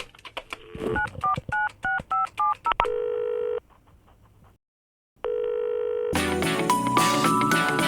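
Touch-tone phone keypad beeps: several quick key presses, each a short two-note beep. They are followed by two short call tones of the line ringing, with a gap between them, and then music starts near the end.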